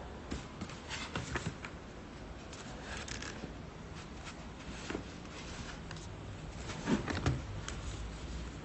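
Hands handling and turning a cardboard product box: scattered rubs, taps and scrapes of cardboard, with a couple of louder thumps about seven seconds in.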